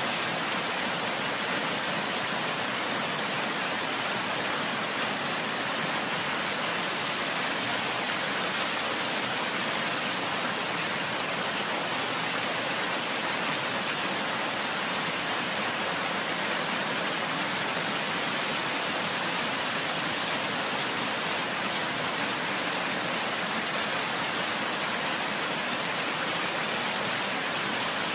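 Rushing water as a steady, even hiss, with no separate drips or splashes standing out.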